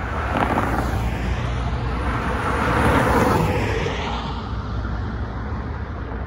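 A car passing close by on the road, its tyre and engine noise swelling and fading, loudest about three seconds in, over a steady low rumble.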